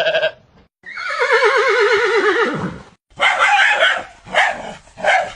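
A girl's voice imitating a horse's whinny: one long quavering call that slowly falls in pitch, followed by several short rough calls.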